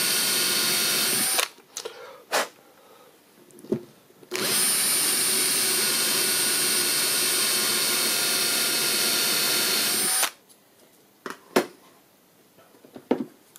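Cordless drill running at a steady speed, driving a 1.5 mm bit into aluminium, in two runs: a short one that stops about a second and a half in, and a longer one of about six seconds after a pause of about three seconds. A few light clicks come in the pause and after the drill stops.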